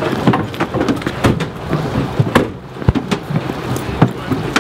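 Firefighters in turnout gear climbing out of a fire engine's cab and running on paving stones: a quick, irregular string of knocks and thumps from boots, doors and equipment, over a low steady hum.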